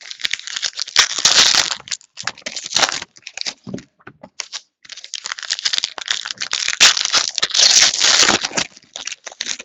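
Trading card pack wrappers and packaging crinkling as they are handled, in irregular bunches of rustling and crackling, loudest about a second in and again near the end.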